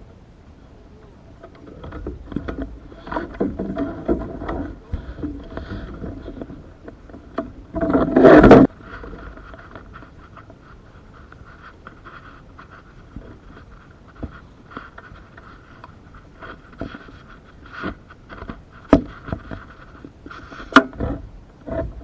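Handling noise on a wooden canoe as a tow rope is worked and an overturned duck boat rubs alongside: scattered knocks and clicks, with one loud scraping rub lasting about a second roughly eight seconds in.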